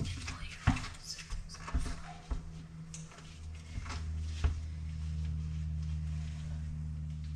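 Scattered knocks and rustling as gear and clothing are handled. A steady low hum comes up about four seconds in and holds.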